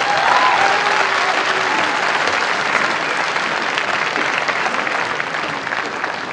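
Audience applauding, with a short rising call over the clapping in the first second; the applause slowly thins towards the end.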